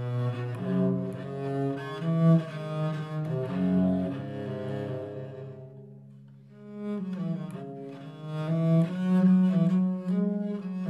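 Seven-string bass viol (viola da gamba), built after a 1688 M. Hoffmann model, being played with the bow: a melodic line of changing low and middle notes. The phrase dies away around six seconds in and a new phrase begins about a second later.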